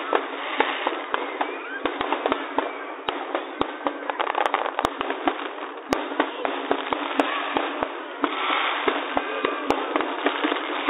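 Many aerial firework shells bursting at once: irregular sharp bangs, often several a second, over a constant dense background of further distant bangs.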